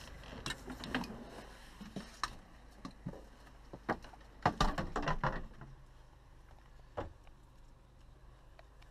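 Scattered knocks, clicks and rattles of things being handled and moved around inside a motorhome's wooden interior, with a close cluster of louder knocks about four and a half to five and a half seconds in, over a steady low hum.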